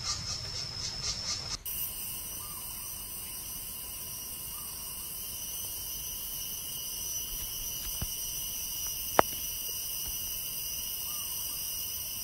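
Forest insect chorus. For the first second and a half a shrill high chirr pulses about six times a second, then a steady, many-toned high-pitched insect drone takes over. A sharp click sounds about nine seconds in.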